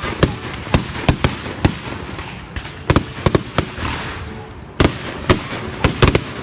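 A fireworks display: a rapid, irregular string of loud bangs and cracks, several a second, over a continuous crackle and rumble.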